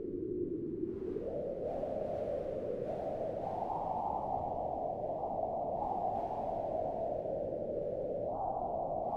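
Low, steady winter-storm wind, swelling in slow gusts, with a dull muffled sound, as if heard from indoors.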